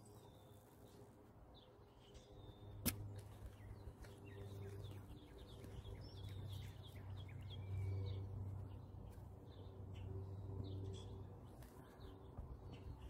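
Faint outdoor ambience: scattered birdsong chirps over a low hum that swells and fades, with one sharp click about three seconds in.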